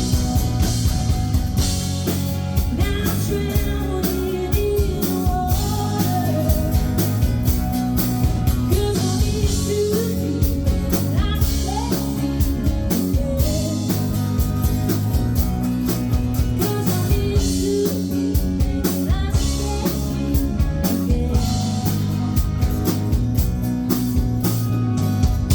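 Live rock band playing: drum kit, guitars and bass with a singer's voice over them, recorded loud and full from the audience.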